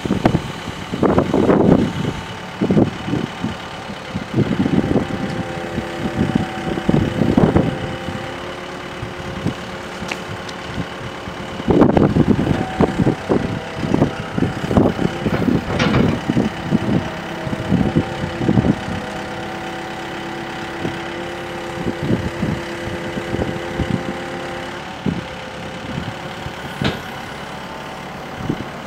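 Hitachi EX75US-5 compact excavator's diesel engine running while the boom, arm and bucket are worked, with a steady whine and irregular surges in loudness.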